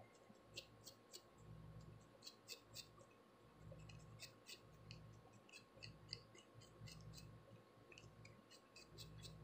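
Faint, irregular scratchy clicks of a plastic tail comb scraping along the scalp through the hair, lifting dandruff flakes.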